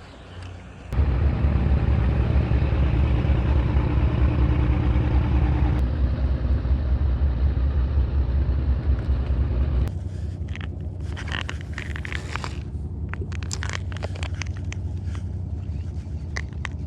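A motor engine running steadily with a low hum. It starts abruptly about a second in and drops in level about ten seconds in, followed by a run of sharp clicks and rattles.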